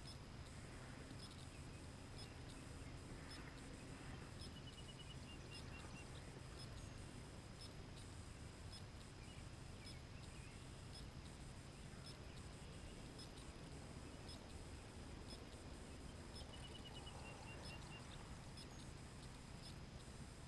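Near silence: a faint steady hum and hiss with a thin high whine, and twice a brief run of faint high chirping notes.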